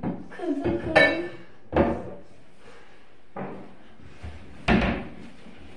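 A handful of separate knocks and clinks as household objects are handled and set down, one about a second in with a short ringing clink, and the loudest a thump near the end.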